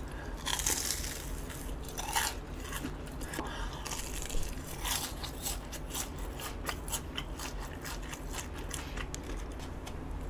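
A person chewing a batter-fried hot dog: crisp crunches of the fried crust with many small crackles, and a few louder bites among them.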